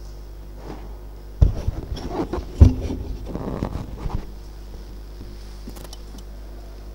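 Papers being handled right at a table microphone: rustling with two sharp knocks, about a second and a half and two and a half seconds in, that dies away after about four seconds. A steady low hum runs underneath.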